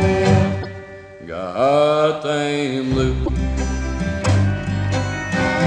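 Hillbilly country string-band music, a plucked guitar over a bass line. About a second in, a held note slides upward, and the band plays on.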